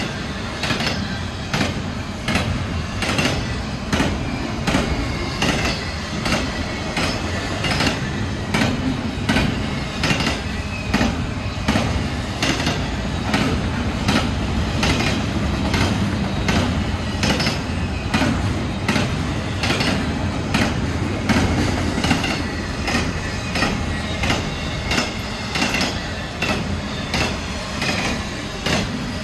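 Double-stack intermodal well cars of a freight train rolling past, their wheels clicking over rail joints in a steady rhythm over a continuous low rumble, with a faint wavering wheel squeal.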